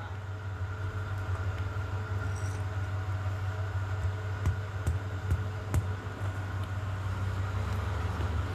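A steady low mechanical hum, like a motor or engine running, with a few faint sharp clicks about four and a half and nearly six seconds in.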